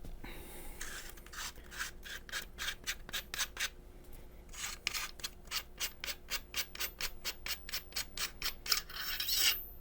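Barrel nut of a Blackwater Sentry 12 12-gauge pump shotgun being unscrewed by hand: a rhythmic rasping rub of metal threads, about four strokes a second, with a short pause about four seconds in.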